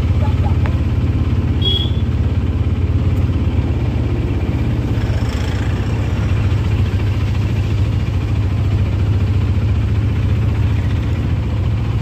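Auto-rickshaw engine running steadily while the rickshaw drives along, heard from inside the open cabin as a constant low drone with road noise.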